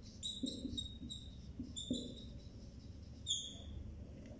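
Marker squeaking on a whiteboard as words are written: a series of short, faint, high squeaks, the longest about three seconds in.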